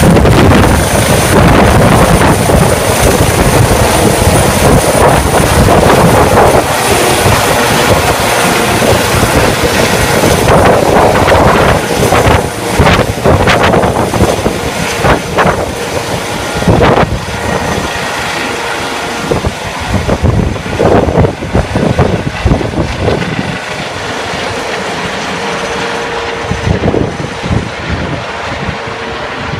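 Rescue helicopter's turbine engines and rotor running at full power as it lifts off and climbs away, with a steady high turbine whine over the rotor noise. The sound is loudest at first and gradually fades over the second half as the helicopter gains height and distance.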